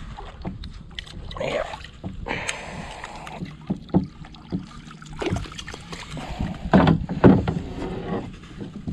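A hooked bluegill being landed at a kayak: water splashing and sharp knocks against the hull, the loudest a few seconds before the end.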